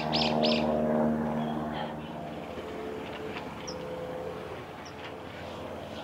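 A passing motor vehicle: a steady engine hum that swells over the first second or two and then fades. A bird's quick run of high chirps ends about half a second in, and a few single high chirps follow later.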